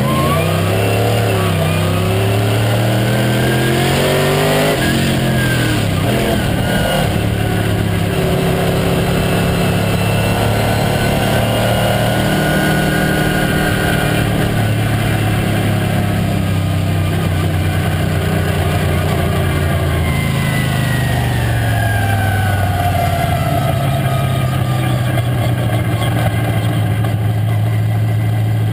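Late model stock car's V8 engine heard from inside the cockpit at racing speed, its pitch rising and falling repeatedly with the throttle through the turns. Over the last few seconds it settles to a lower, steady pitch.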